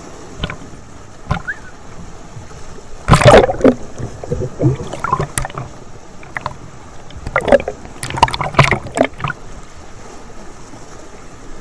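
Small sea waves splashing and sloshing around a camera held at the water's surface, the microphone at times washed over. Loud bursts of splashing come about three seconds in and again around seven to nine seconds in.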